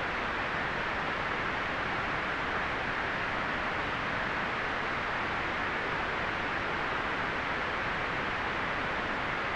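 Continuous white noise: an even, unchanging hiss, fullest in the middle range with a dull, rolled-off top end.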